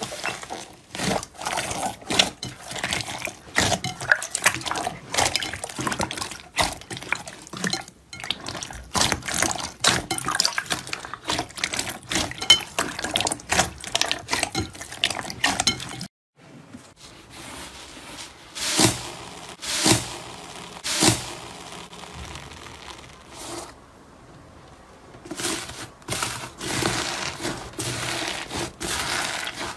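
Hands squeezing and kneading a large mass of glossy slime, with wet squelches and many small sticky pops and crackles. Partway through it breaks off, then comes back as a few separate loud squelches. Near the end it turns into dense crackling as a slime studded with foam beads is crushed.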